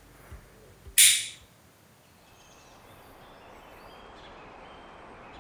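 A short loud hiss-like whoosh about a second in, fading within half a second. Then faint outdoor ambience with a few faint bird chirps.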